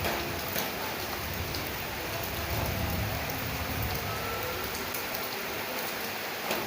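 Steady rain falling, an even hiss with a few sharper drops striking close by.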